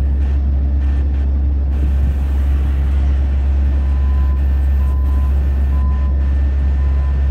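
Loud, steady low rumble of idling vehicle engines. From about four seconds in, a vehicle backup alarm beeps roughly once a second as the fire department ambulance reverses.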